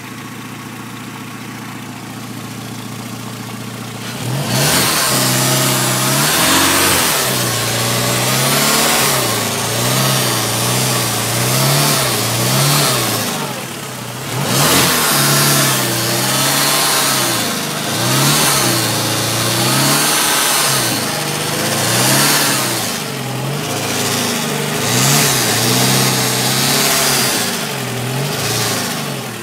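VW Golf IV 1.6 four-cylinder petrol engine idling steadily, then from about four seconds in revved lightly up and down over and over, about every two seconds, before dropping back to idle near the end.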